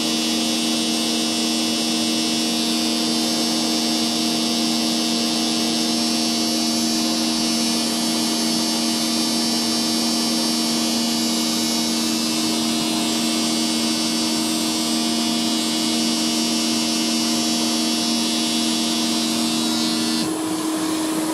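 Vacuum cleaner motor running steadily with a high whine, its suction driving a Flowbee vacuum haircutting attachment. Near the end one of its tones drops out and the hiss changes.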